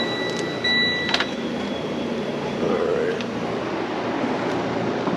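Freightliner Cascadia tractor's diesel engine idling, heard with the cab door open. A steady high electronic tone stops with a click about a second in.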